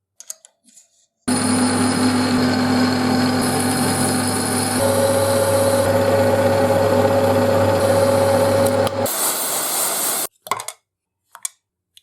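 A small electric power tool starts about a second in, runs steadily against the metal of the iron being restored, and stops abruptly near the end. A few short knocks follow.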